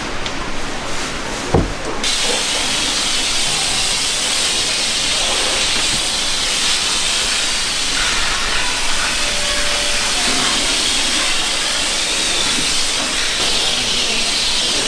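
Water hose with a spray nozzle hissing as a fine jet of water is sprayed, starting about two seconds in and staying steady. A single sharp knock comes just before the spray starts.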